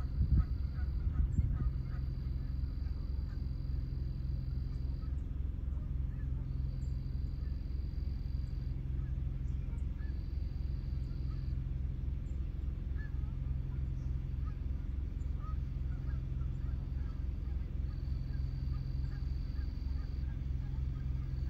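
Canada geese with their goslings giving short, scattered calls over a steady low hum. There are a few knocks in the first second or so.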